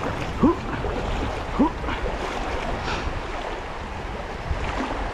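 Rushing water of a shallow river running over riffles: a steady noisy wash. Two short rising sounds come in the first two seconds.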